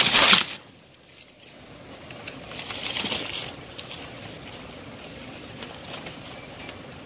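Leaves and brush rustling close by, loudest in a short brush at the start, then softer rustling and scraping as a hand works inside a hollow in a tree trunk.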